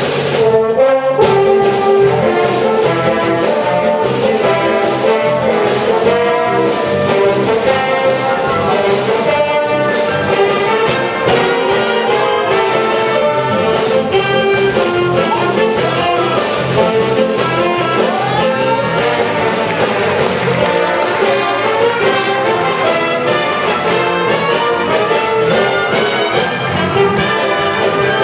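A brass band of saxophones, trombones and trumpets playing a lively tune, with a steady beat underneath.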